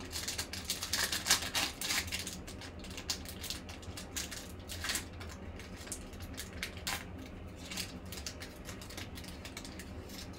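Foil trading-card pack crinkling and tearing as it is opened by hand: a dense run of crackles over the first couple of seconds, then scattered crinkles as the wrapper is peeled back from the cards.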